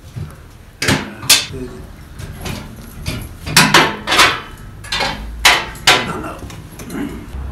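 About eight sharp knocks or strikes, unevenly spaced over several seconds, some coming in quick pairs, with a low rumble between them.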